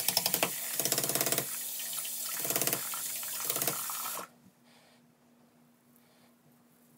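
Bathroom sink tap running while a razor is rinsed under it, with several short bursts of fast rattling. The tap is shut off about four seconds in, leaving a faint steady hum.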